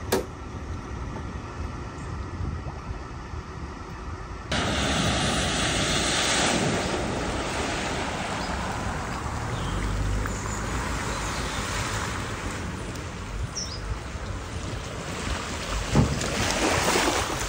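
Floodwater splashing and rushing, with wind buffeting the microphone. The sound steps up abruptly about four and a half seconds in, and a sharp knock stands out near the end.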